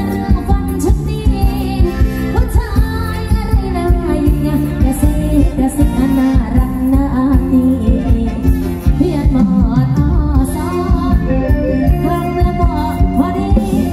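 Thai ramwong dance music played by a live band, with a steady beat and a voice singing over it.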